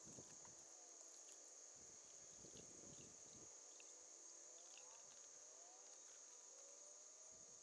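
Faint, steady high-pitched drone of cicadas, with a few faint low rumbles in the first three seconds.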